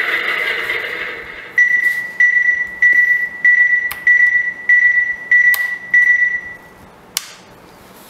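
Electronic beeping from a radio-controlled model truck's electronics: eight short high beeps at one pitch, evenly spaced at a little under two a second. Before them a steady rushing sound dies away, and a few sharp clicks come near the middle and near the end.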